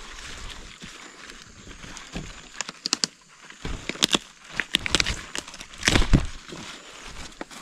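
Leafy greens being picked by hand: the leaves rustle and crackle, with several sharper snaps in the middle of the stretch, the loudest about six seconds in.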